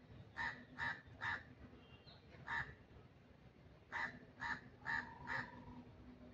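A crow cawing: three short caws in quick succession, a single caw about a second later, then a run of four more.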